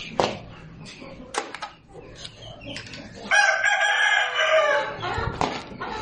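A rooster crowing once, a long wavering call starting a little past halfway, over scattered clicks and rustles of grain and a plastic sack being handled.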